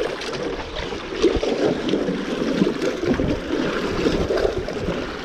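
Water splashing and lapping among shoreline rocks, with wind buffeting the microphone.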